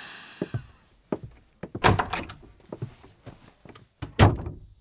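A wooden door being handled: a run of sharp clunks and knocks, loudest about two seconds in and again near the end.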